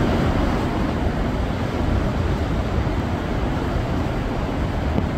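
Muddy storm runoff rushing down a rocky ravine bed after heavy rain, a steady, unbroken noise of flowing water.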